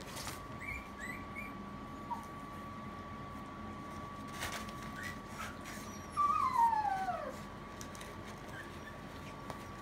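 Maltese puppy whimpering: a few short high squeaks about a second in, then one long whine falling in pitch about six seconds in.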